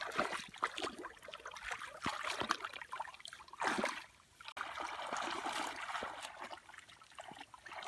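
Shallow muddy water splashing and trickling as it is stirred by hand, in irregular sloshes at first, then a steadier trickle from about halfway.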